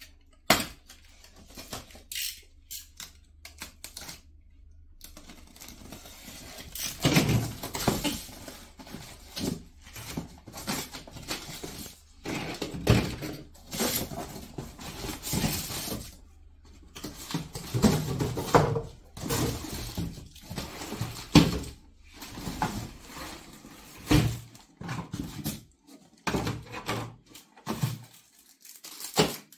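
A cardboard carton being opened and unpacked: tape and flaps pulled and scraped, plastic wrapping rustling and crinkling, and parts knocked and set down on a table, in irregular bursts.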